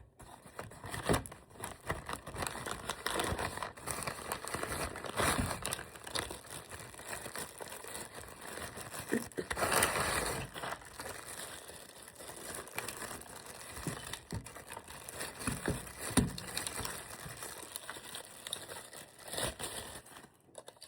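Plastic packaging crinkling and rustling, with scattered knocks and clicks, as a tripod is unpacked and handled. The loudest rustling comes about halfway through.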